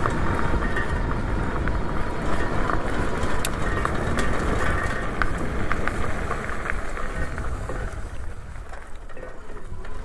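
Windone K20 electric bike rolling along a trail, its loose front fender rattling and vibrating with sharp clicks every so often, over steady wind rumble on the microphone. The fender rattle is the bike's main noise; the motor itself is nearly silent.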